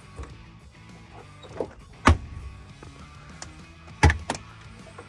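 Scania R450 side locker door shut with a loud clunk about two seconds in, then a second sharp clunk about four seconds in, followed by a smaller knock, as the latch is released from the cab door-jamb button. The latch works on its newly fitted release cable.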